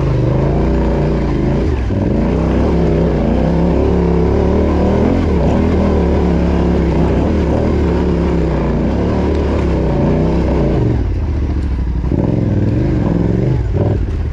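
Yamaha Ténéré 700's parallel-twin engine pulling the motorcycle up an off-road climb, revs rising and falling with the throttle. About eleven seconds in it eases off to a lower, lighter run.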